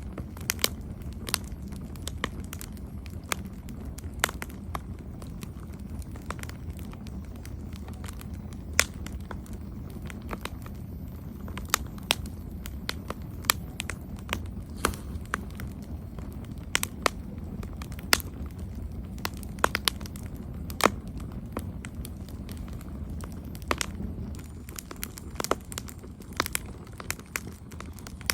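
Campfire of burning wood crackling: irregular sharp pops and snaps, several a second at times, over a steady low rumble.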